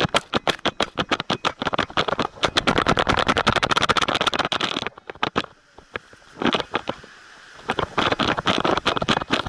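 Rapid rattling and scraping clicks from an action camera strapped to a running dog's back, jostled with every stride. The clicking stops about five seconds in for two or three seconds, with only a couple of knocks, then starts again.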